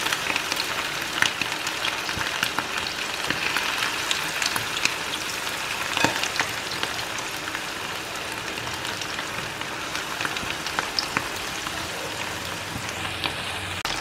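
Hot oil sizzling and crackling steadily as pieces of cornflour-coated chicken thigh are dropped in and deep-fried for karaage, with a sharper crackle about six seconds in.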